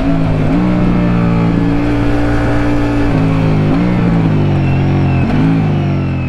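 Ducati Multistrada V4 Rally's 1158 cc V4 engine under a rider. Its pitch jumps up sharply three times and sags slowly in between, as in downshifts while slowing on engine braking. The sound fades out near the end.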